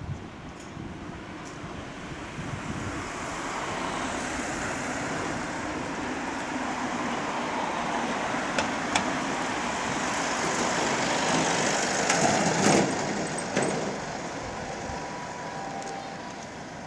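A vehicle passing close by, its rumble building for about ten seconds and peaking with a few sharp knocks before easing off.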